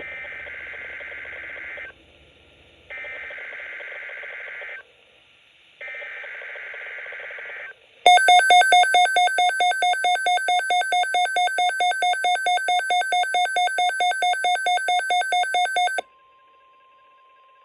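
NOAA Weather Radio emergency alert sequence. First come three buzzy SAME digital header bursts, each about two seconds long with short gaps between them. A weather radio receiver's alarm then beeps rapidly and loudly for about eight seconds, and a faint steady 1050 Hz warning tone is heard near the end.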